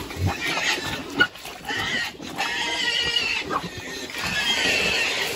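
Crossbreed native pigs squealing again and again at feeding time, with a single sharp knock about a second in.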